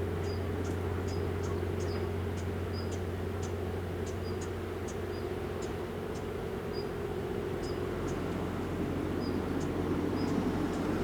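Steady low hum of an idling diesel engine, with short high chirps about once or twice a second.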